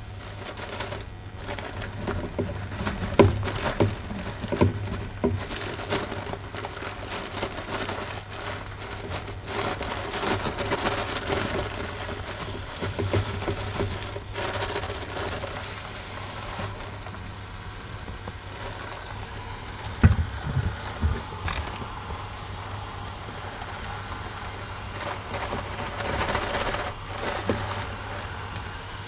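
A plastic packet crinkling and rustling as sugar is poured from it into a plastic funnel, with the grains running through and a few sharp knocks from handling.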